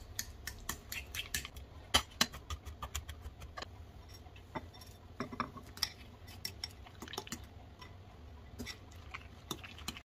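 A metal spoon stirring cream cheese in a glass bowl, knocking and scraping against the glass in quick, irregular clicks. The sound cuts off abruptly near the end.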